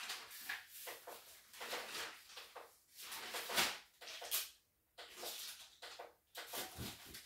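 Irregular rustling and scraping with a few brief louder swells: things being handled and moved around by hand, such as cables and equipment during setup.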